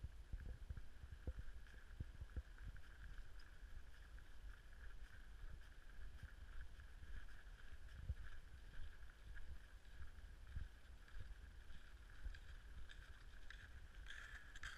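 Faint, steady squeaking hiss of movement over cold, dry snow, with irregular low thumps underneath.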